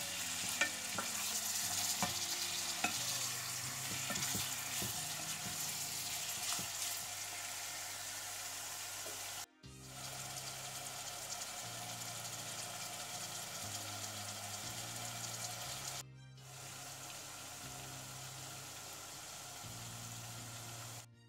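Salted beef chunks and sliced onions sizzling as they fry in oil in an aluminium saucepan, with a wooden spoon knocking and scraping against the pot during the first several seconds. The sizzle is softer in the later part and cuts out briefly twice.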